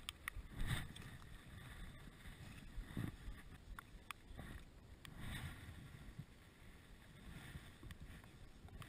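Water sloshing and lapping close to the microphone as the angler moves in the water, with a few light clicks and taps from handling the fly rod and line.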